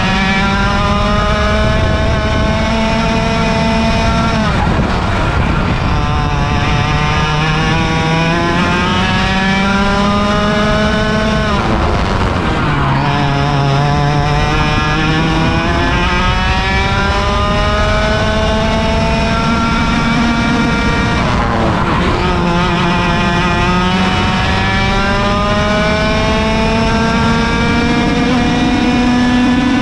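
Onboard sound of a 100cc two-stroke kart engine racing at full throttle, its pitch climbing steadily as the kart accelerates down the straights. It drops sharply three times, about four and a half, twelve and twenty-one seconds in, as the driver brakes for corners, then climbs again.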